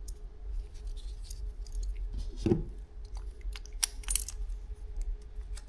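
Light clicks and clinks of small plastic and metal parts being handled: the replacement door-handle hinge and its screw. There is a duller knock about two and a half seconds in.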